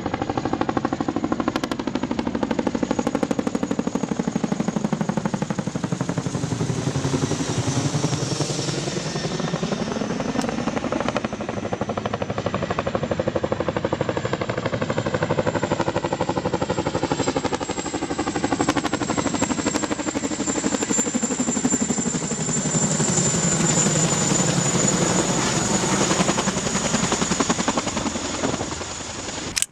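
Steady engine noise of an aircraft overhead, with a high whine and a tone that slowly dips and rises twice as it passes.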